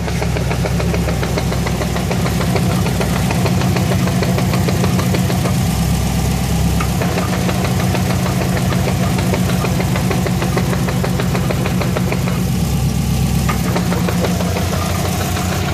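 Car engine idling with a fast, steady rattling tick from the transplanted 2004 STi six-speed gearbox. This is the noise that appeared after the six-speed conversion and goes away when the clutch pedal is pressed.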